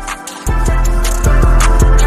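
Intro music with a steady beat; a deep bass comes in about half a second in and the beat grows fuller.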